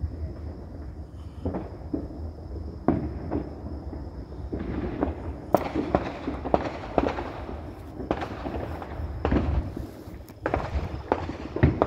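Consumer fireworks and firecrackers going off, irregular pops and bangs that come sparsely at first and then in quick, dense volleys from about four and a half seconds in, over a low steady rumble.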